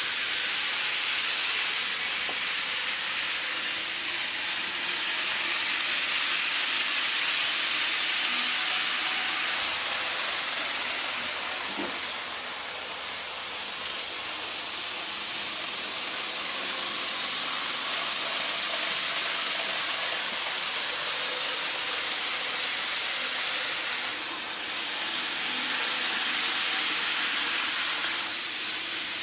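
N gauge model train running on a layout track: a steady hiss that dips a little twice.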